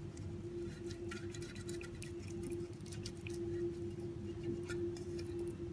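Faint scattered taps and light rubbing of fingers spreading butter inside an aluminium tube cake pan, over a steady hum.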